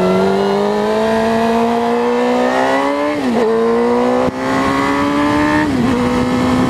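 2002 Suzuki GSX-R 600's inline-four engine accelerating hard through the gears. Its pitch climbs steadily, drops at an upshift about three seconds in, climbs again, and drops at a second upshift near the end, then holds steady.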